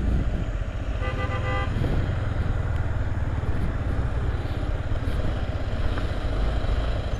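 Motorcycle on the move: the Yamaha MT-15 V2's engine running under a steady low rumble of riding noise. About a second in, a vehicle horn sounds once, a short honk of well under a second.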